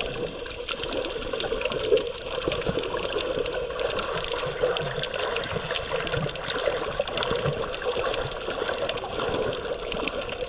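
Sea water heard through a camera held underwater: a steady muffled wash with dense fine crackling.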